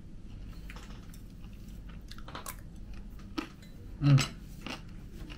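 Close-up crunchy chewing and biting of crispy fried food: kremesan, flaky fried batter crumbs, crackling in the mouth in short irregular crunches. A brief voiced "mm" sounds about four seconds in.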